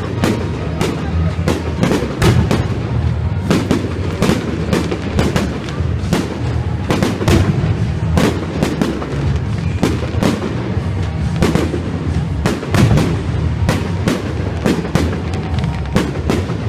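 Aerial firework shells bursting overhead in quick, irregular succession, a sharp bang every half second or so, over steady background music.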